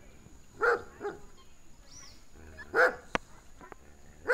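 A dog barking, single barks at irregular intervals: one about a second in, another near three seconds, and one at the very end.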